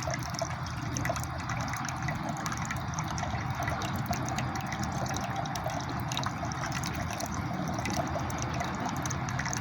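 Drinking fountain running, a steady trickle and splash of water.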